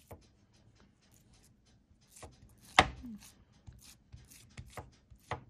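Hands patting and slapping a raw meatloaf mixture of ground meat and bread into shape on a plate: a handful of short, wet slaps at uneven intervals, the loudest about three seconds in.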